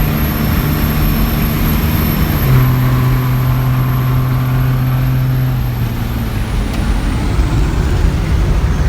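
Straight-piped 24-valve Cummins 5.9 L inline-six diesel in a 1999 Dodge Ram 2500 pulling hard under load through a 4-inch straight pipe, heard from the cab with the windows down. The steady engine note drops in pitch about two and a half seconds in, then fades around six seconds in, leaving road and wind noise.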